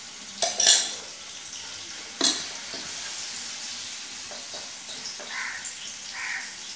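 Ground onion-tomato masala paste sizzling in hot mustard oil in a nonstick frying pan while a wooden spatula stirs and spreads it. The spatula knocks against the pan a few times in the first couple of seconds.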